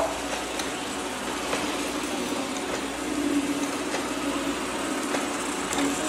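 Several robot vacuums running at once, a steady motor and brush hum with a held tone and a few faint clicks as they work through water beads on a tile floor.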